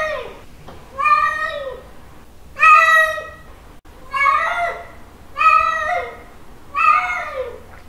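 Male cat's mating call: five long, drawn-out meows in a steady series, about one every second and a half, each sliding down in pitch at its end.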